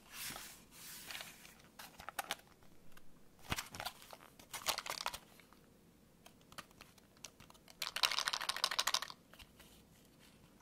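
Clear plastic blister tray of foam ear tips handled in the fingers, crinkling and clicking in several short bursts with quiet gaps between them; the longest burst comes about eight seconds in.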